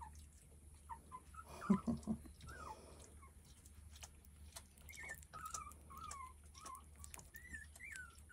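Very young puppies whimpering in short, faint, high squeaks that bend up and down in pitch, a few at first and then in a near-continuous string over the last few seconds. A brief louder thump comes about two seconds in.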